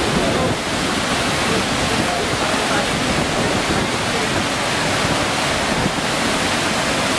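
Steady, unbroken noise of a rough, cyclone-driven sea: surf and rushing seawater.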